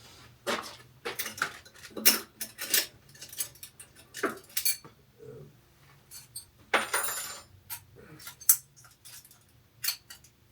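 Small metal objects clinking and knocking as they are handled, a string of separate sharp clinks with a short scrape about seven seconds in.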